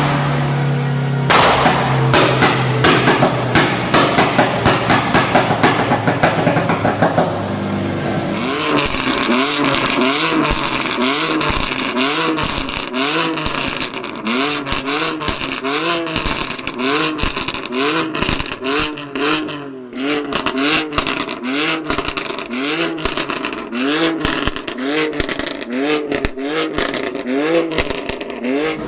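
Car engine with exhaust pops and crackles. At first a dense run of crackling pops sits over a steady engine note. After about eight seconds it changes to repeated quick throttle blips about a second apart, each rev rising and falling, with popping on the overrun between them.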